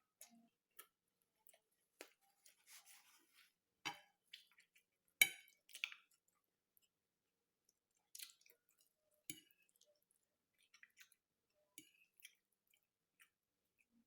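Faint close-up chewing and wet mouth sounds of someone eating a soft egg omelette wrapped in bread, with scattered small clicks and taps. The loudest click comes about five seconds in.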